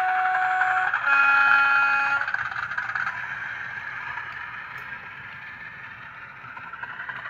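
A DCC sound-fitted OO gauge model locomotive sounding a two-tone horn from its onboard speaker: a higher note for about a second, then a lower one for about a second. A fainter hiss and hum from the loco's sound follows.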